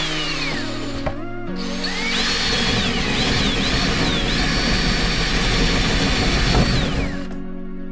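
Power drill boring a hole through a panel: a short burst, then from about two seconds in a longer run of about five seconds, the motor's whine rising and falling as the bit cuts. Background music plays underneath.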